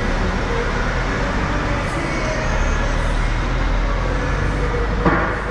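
Steady rumble of an idling engine under a broad noisy hiss, with a brief sharp sound about five seconds in.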